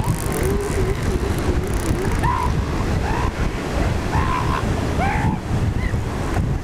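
Surf and wind on the microphone at an elephant seal rookery, with short high rising yelps from the seals about once a second and a wavering, drawn-out lower call in the first two seconds.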